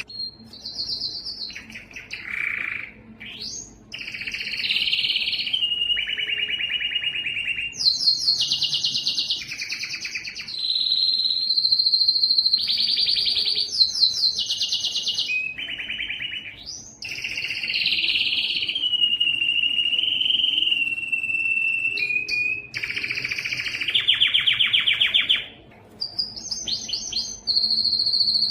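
Domestic canary singing a long, varied song of rapid trills and whistled notes, the phrases changing every second or two. A long held whistle comes in the middle.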